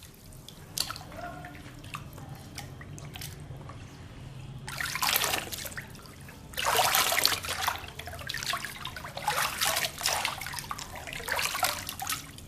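Water balloons bursting, with water splashing and gushing out in about four bursts of a second or so each, and a few small drips and clicks in the quieter first part.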